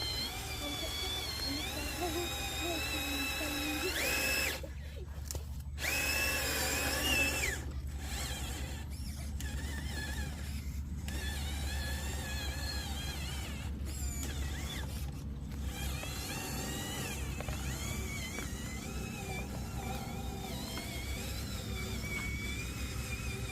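Electric motors and gearboxes of radio-controlled construction models whining, the pitch rising and falling as they work, with several brief pauses where the whine cuts out. A steady low hum runs underneath.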